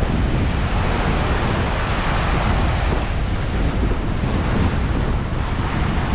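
Small ocean waves breaking and washing up the sand, a steady hiss of surf, with gusty wind buffeting the microphone underneath.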